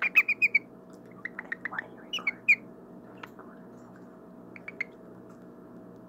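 Cockatiel giving short, quick chirps in little clusters, a few louder ones about two seconds in, then falling quiet for the last second, over a faint steady hum.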